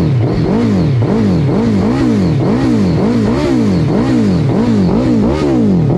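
A 2017 Suzuki Hayabusa's 1340 cc inline-four is revved in quick, repeated throttle blips, about two a second, each rising and falling in pitch. It sounds through an aftermarket TBR (Two Brothers Racing) Silver Series carbon slip-on exhaust.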